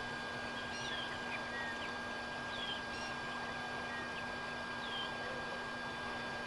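Short, high, falling bird chirps every second or two, with a few shorter notes between them, over a steady outdoor hiss, a thin constant high tone and a low hum.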